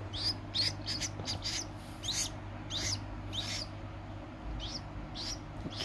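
White-breasted waterhen chicks peeping: a string of short, high, falling chirps, about two or three a second.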